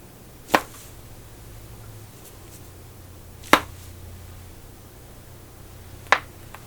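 Three sharp neck cracks, about three seconds apart: joints in the neck popping as the neck is turned or adjusted.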